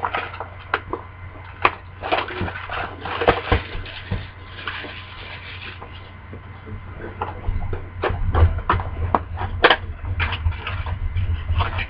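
Cardboard blaster box being opened and its foil card packs taken out by hand: irregular crinkling, rustling and small knocks.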